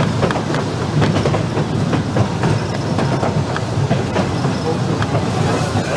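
Vintage electric streetcar rolling along its track, heard from its open front platform: a steady rumble of wheels on rail with scattered sharp clicks.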